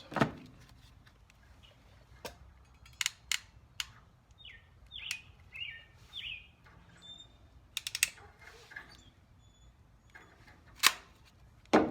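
Ratcheting crimping pliers clicking as a heat-shrink butt connector is crimped onto a wire: scattered sharp clicks, with the loudest two near the end. A bird chirps a few times in the middle.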